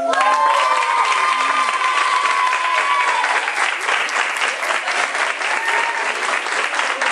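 Audience of children and adults applauding in a hall, with one voice holding a long high call over the first three seconds.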